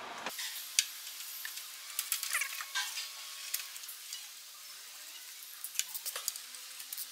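Hand wrench clicking and clinking against bolts as a bolt on the engine beside the compressor is undone, in scattered light clicks over a steady hiss.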